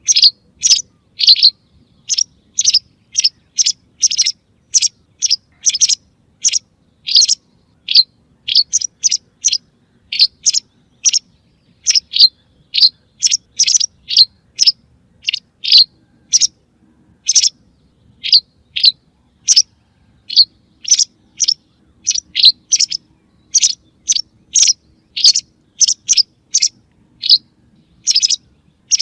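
White wagtail calls: short, sharp chirps repeated steadily at about two a second, used as a bird-hunting lure call.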